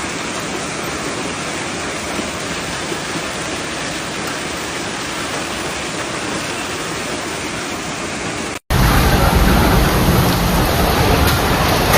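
Heavy downpour of rain and hail, a steady hiss. Near the end, after a brief break, a louder, deeper rush with a few sharp impacts.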